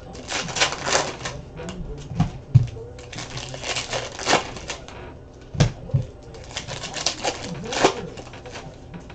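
Plastic trading-card pack wrappers crinkling and tearing as packs are ripped open, in several bursts of rustling, with a few sharp knocks of cards or packs on the table.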